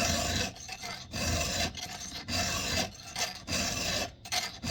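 A new round chainsaw file rasping across the cutters of a Husqvarna 372XP's chain in light, even push strokes: four strokes a little over a second apart, with a fifth just starting at the end. The fresh file bites and takes metal with little pressure, giving a gritty cutting sound.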